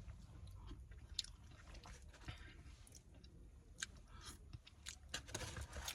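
Faint chewing of a mouthful of food, with scattered soft mouth clicks.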